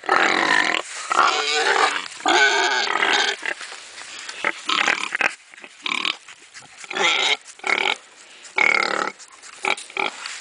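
Yorkshire–Duroc cross piglets squealing: a string of short, high-pitched calls with brief pauses between them.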